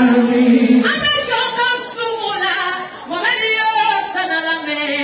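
A woman singing unaccompanied into a microphone. She holds one long note, then about a second in moves into sliding, ornamented phrases that fall in pitch, with short breaks between them.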